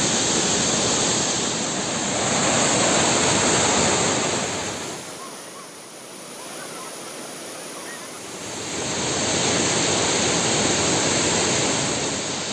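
Waterfall's rushing water, a steady noise that drops much quieter for a few seconds in the middle and then returns.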